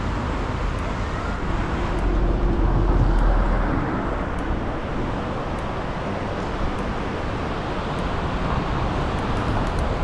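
Steady outdoor traffic noise, with a vehicle passing that swells about two seconds in and fades by four.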